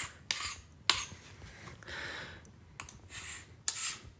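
Scraper scraping dried hydrogen peroxide paste off a hardwood floor in about five short strokes.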